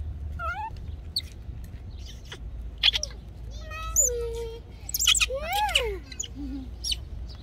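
Baby macaque screaming and squealing: a few short high cries near the start, a longer cry about four seconds in, and a squeal that rises and then falls just before six seconds.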